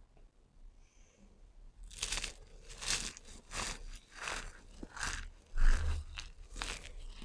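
Hands squeezing a handful of dry crumbled soap shavings, which crunch and crackle in a run of squeezes about every half to three-quarters of a second, starting about two seconds in. A dull thump a little past the middle.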